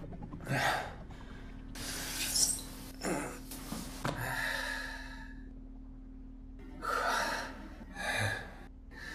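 A person breathing audibly: about six separate breaths and gasps spread over several seconds, with a faint steady low hum in the middle stretch.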